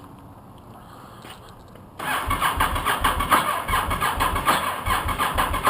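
Electric starter cranking the 2004 Honda VTR1000F SuperHawk's 90-degree V-twin for about four seconds, starting about two seconds in, with uneven low pulses from the cylinders' compression strokes. It stops without the engine settling into a run, a failed start attempt.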